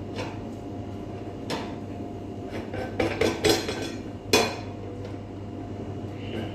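Kitchen clatter: a few clinks and knocks of metal cookware and utensils, the loudest a sharp knock about four seconds in, over a low steady hum.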